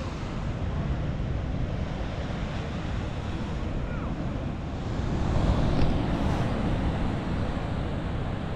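Steady wind noise on the microphone over ocean surf washing against the pier, growing louder for a couple of seconds about halfway through.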